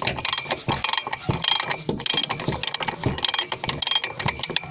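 Socket ratchet wrench clicking in quick, uneven strokes as it works a nut at the brake master cylinder.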